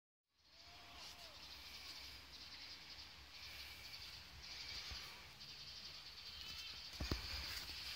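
Faint background ambience: a steady low rumble and a high hiss, with a single knock about seven seconds in.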